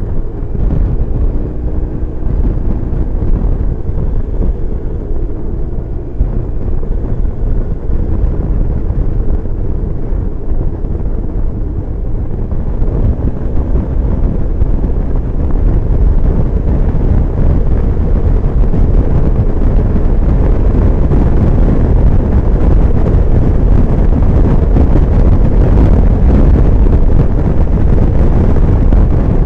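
Wind rumbling on a helmet-mounted microphone over the BMW R1150GS's boxer-twin engine, with the engine's pitch rising and falling as it shifts in the first few seconds. The rumble grows louder from about halfway through as the bike gathers speed.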